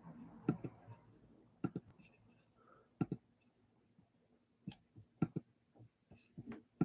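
Computer mouse clicking: scattered short, sharp clicks, several in quick pairs, with quiet gaps between.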